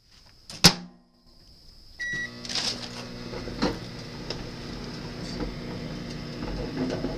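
Microwave oven: a sharp click, then a short beep about a second later as it is started, then the oven running with a steady hum and a few faint clicks.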